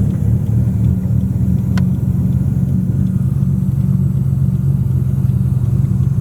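Nissan Skyline R34 GT-R's tuned twin-turbo RB26 straight-six running steadily, a deep, even drone with no big rises or falls in revs. A single sharp click about two seconds in.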